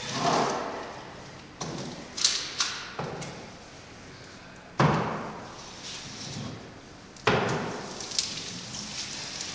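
Clothes iron knocked against a canvas hung on a wall and pushed across it: about six sudden, unevenly spaced thuds, each fading off into a rubbing scrape.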